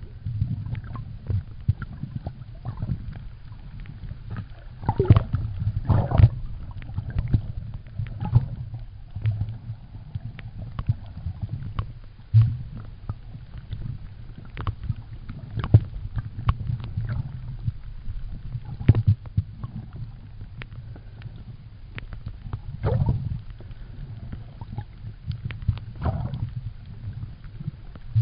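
Muffled underwater noise recorded while snorkeling: a steady low rumble of moving water with scattered sharp clicks and knocks.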